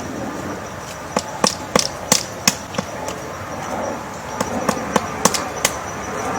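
Woodpecker pecking at wood: sharp knocks in two short bouts, about three a second, with a pause between them.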